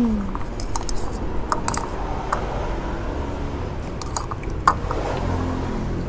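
Scattered light clicks and clinks of chopsticks and a spoon against a bowl while eating noodles, over a steady low background hum.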